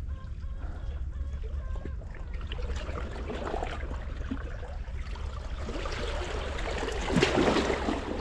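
Sea water washing and splashing against shore rocks, growing louder toward the end, over a steady low wind rumble on the microphone.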